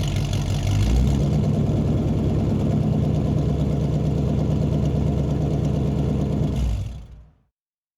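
Muscle car engine idling with a deep, steady note, reverberating in a large room. Its pitch shifts slightly about a second in, and the sound stops about seven seconds in.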